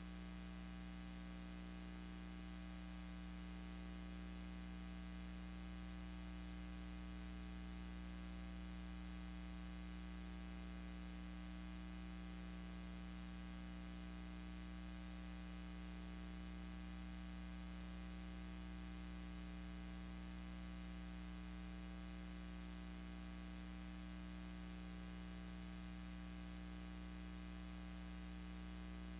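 Steady electrical mains hum with a layer of hiss, the noise floor of a silent film's sound track; no sound from the aircraft is heard.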